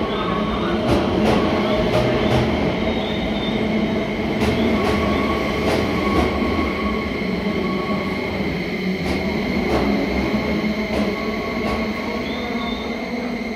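Keio 5000-series electric train pulling into an underground station and slowing: its wheels click over rail joints in pairs that come further apart as it slows, over a steady rumble and a thin high whine.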